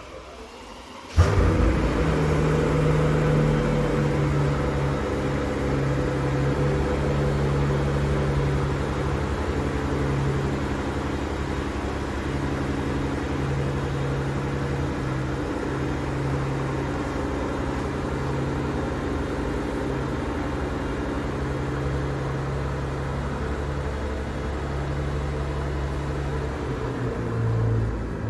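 Mercedes CL65 AMG twin-turbo V12 catching about a second in and then idling steadily. This is its first start after an ABC tandem pump replacement, with the hydraulic system primed.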